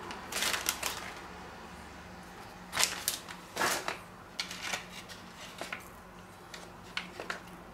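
Plastic bag of grated pizza cheese crinkling and rustling in short, irregular bursts as it is handled and shaken out.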